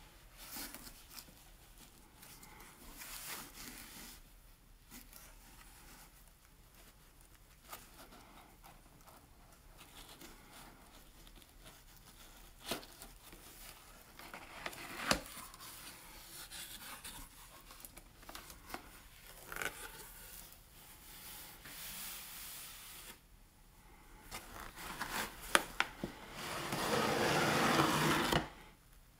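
Toy packaging being handled and opened by hand: scattered rubbing, light knocks and clicks. Near the end comes a louder rustling, tearing stretch lasting about two seconds.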